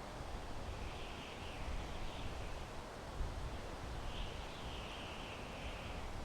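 Wind blowing through pine trees: a steady rushing of the needles with a low rumble underneath. Faint higher-pitched sounds come in about a second in and again for two seconds from about four seconds.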